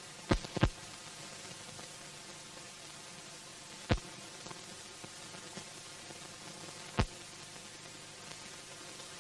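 Steady hiss of a silent film's transfer, with a faint hum under it and a few sharp pops: two close together just after the start, one about four seconds in and one about seven seconds in.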